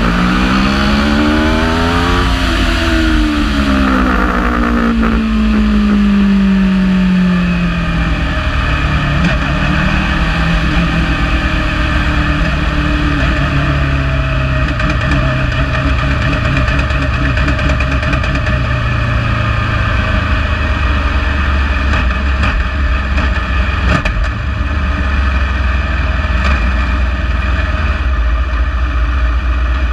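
The Aprilia RSV4 V4 engine of a Wolf Thunder GB08 race prototype, heard from the cockpit: it revs up briefly, then winds down in stepped drops in pitch over several seconds as the car slows. For the last ten seconds or so it runs low and steady at walking pace, with a heavy low rumble throughout.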